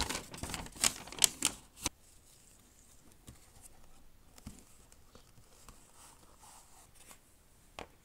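Paper gift wrapping being unwrapped and handled: a quick run of sharp crinkles and rustles in the first two seconds, then quieter light taps and small clicks of the packaging being moved.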